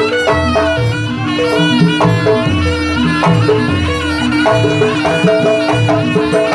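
Live jaranan music of a Turonggo Samboyo troupe: a reedy shawm (slompret) plays a wavering, ornamented melody over repeating drum strokes and a steady low held tone.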